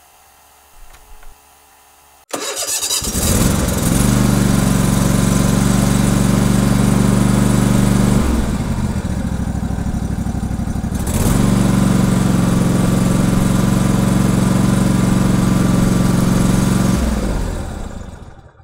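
Toro TimeCutter zero-turn mower engine being started with the key after a faint steady hum, catching about two seconds in and running loud and steady. It drops to a lower speed for about three seconds, picks up again, then is shut off and dies away near the end. It starts and runs on a newly fitted electric fuel pump that replaced the factory vacuum pump.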